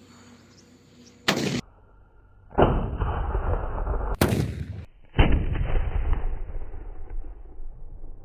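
Homemade firecracker bombs going off: two loud bangs about two and a half seconds apart, each with a long rumbling tail, and a short sharp crack shortly before each bang.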